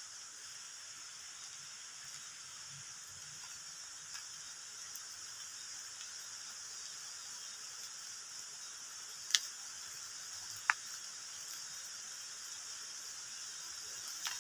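Steady high-pitched drone of insects. Two sharp snaps or clicks come about a second and a half apart near the middle.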